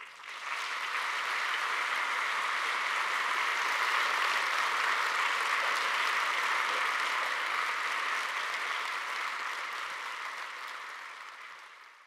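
Audience applauding, swelling within the first second, holding steady, then fading out near the end.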